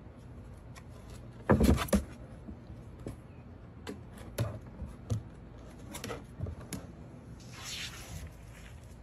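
Puppies' paws knocking and scrabbling on the hollow plastic steps of a toddler slide as they climb it. The loudest is a double bump about one and a half seconds in, followed by a handful of lighter knocks and a short rustle near the end.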